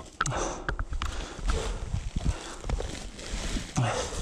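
Irregular thumps and scuffs of boots and a dirt bike being shoved and dragged by hand on a slope, with a loud breath about four seconds in.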